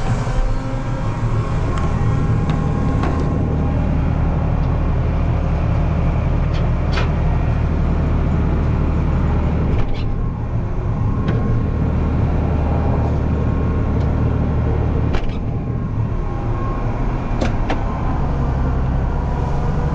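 Farm tractor engine running steadily while under way, its low drone dipping briefly about halfway through and again later, with a few sharp clicks and rattles.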